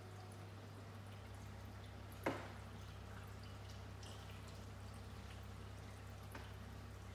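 Reef aquarium's running water: faint trickling and dripping over a steady low pump hum. There is a sharp click about two seconds in and a softer one near the end.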